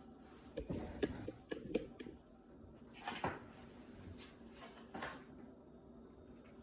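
Light kitchen clatter as fried chicken is served onto plates: a quick run of small knocks and clicks in the first two seconds, then a few single taps around three and five seconds in.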